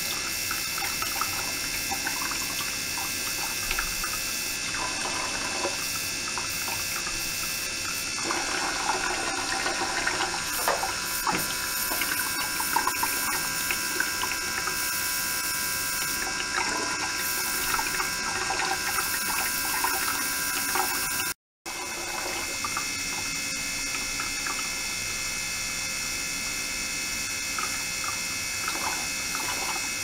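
Water running from a plastic tube into a small glass tank and churning around a submerged ultrasonic probe. It runs under a steady set of high tones, is busier and splashier in the middle stretch, and drops out briefly about two-thirds through.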